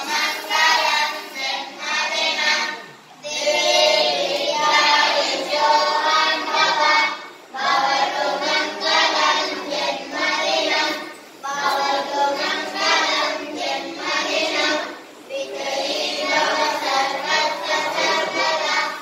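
A group of voices, many of them children's, singing together as a chorus in phrases a few seconds long with brief pauses between them.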